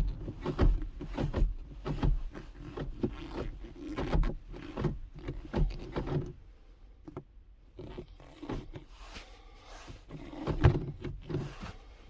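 Manual gear lever of a Ford Transit Mk7, fitted with an aluminium shift knob and reverse lockout adapter, being worked through the gates: a string of clunks and clicks with some rubbing, pausing for about a second and a half partway through.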